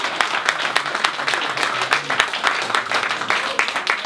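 Group of people clapping, dense and uneven applause that dies away at the very end.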